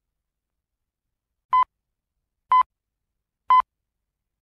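Three short, identical electronic beeps, evenly spaced one second apart, starting about a second and a half in; a timing or countdown tone.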